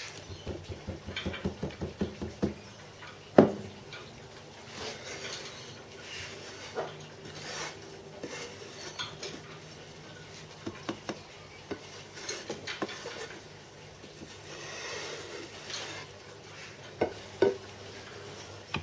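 Hands working damp moulding sand in a wooden casting flask: a quick run of rubbing and patting strokes, then one sharp knock a few seconds in. A wooden strike-off bar scrapes the sand level with the top of the flask, and two sharp knocks on the flask come near the end.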